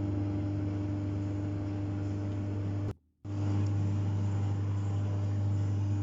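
Microwave oven running with a steady hum and fan noise as it cooks. The sound cuts out for a fraction of a second about halfway through, then carries on unchanged.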